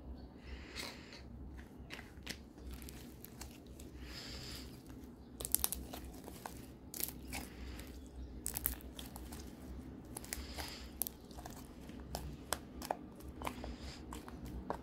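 Homemade slime being stretched, squeezed and pressed by hand, giving off irregular small sticky clicks, pops and crackles.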